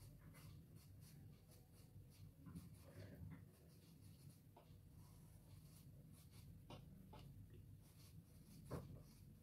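Faint scratching strokes of a charcoal pencil on paper, drawing fine details over soft-pastel shading, with a low steady hum beneath.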